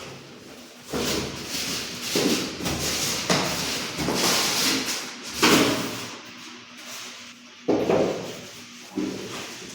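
Soundbar packaging being handled: cardboard and packing scraping and sliding for several seconds, then two sudden knocks near the end.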